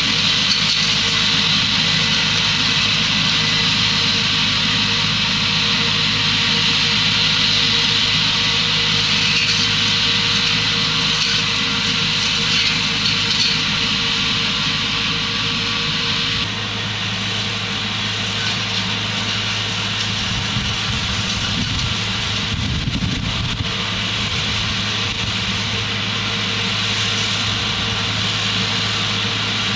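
Tractor engine running steadily while powering a disc pre-pruner trimming trees. About halfway through, the sound shifts a little and drops slightly in level.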